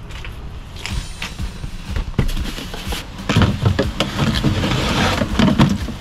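Irregular knocks and thumps with handling noise as camping gear, a portable power station and a stuffed sleeping bag, is loaded through a van's side door.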